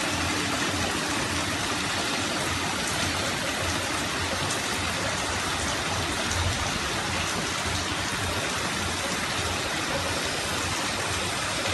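Heavy rain pouring down onto pavement and grass: a steady, even hiss with faint scattered ticks of drops.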